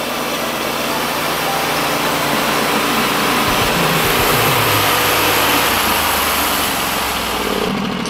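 Timberking 1220 band sawmill running under load, its engine driving the band blade through an oak cant with a loud, steady sawing hiss over the engine. Near the end the cutting sound drops away abruptly as the blade runs out of the log.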